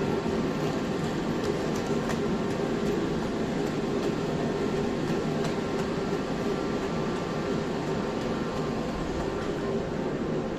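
Steady hum from parked Frecciarossa high-speed electric trains, whose onboard equipment runs while they stand at the platform, with a few faint clicks.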